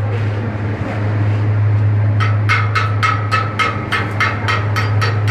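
A hammer striking a welded steel plate held in tongs, knocking at part of the weld bead. It starts about two seconds in and gives ringing metallic blows, about three to four a second, over a steady low hum.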